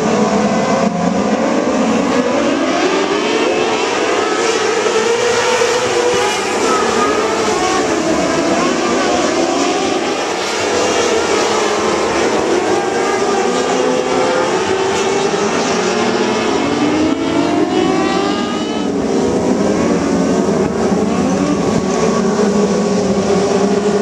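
A field of winged sprint cars racing on a dirt oval, many engines revving at once, their pitches rising and falling as the cars accelerate down the straights and lift for the turns.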